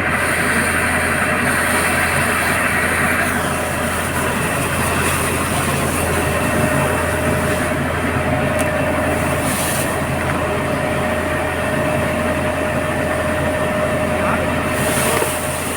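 Fire tender's pump engine running steadily under the loud, continuous rush of a fire hose jet spraying water, with a steady whine joining about four seconds in.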